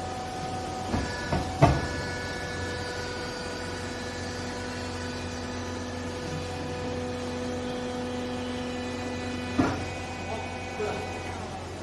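Vertical hydraulic baler running: a steady pump-motor hum and whine while the press cycles, with a few sharp clunks about a second in and another near the end, where the whine changes pitch.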